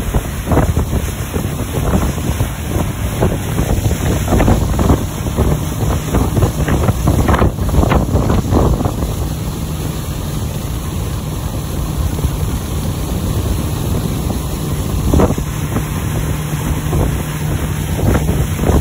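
Wind buffeting the microphone over the steady drone of a ski boat's engine and the rush of its wake, from on board a boat under way.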